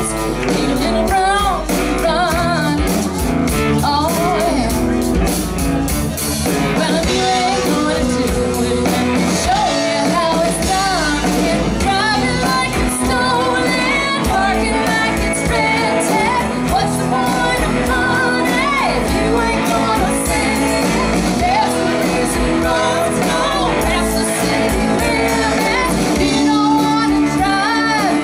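Live rock band playing: a woman sings lead over drums and bass guitar, with a second woman singing backing vocals, in a loud, steady band mix.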